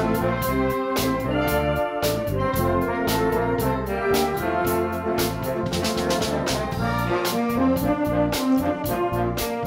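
A wind band playing together: brass and saxophones carry the melody and chords, with percussion keeping a steady beat.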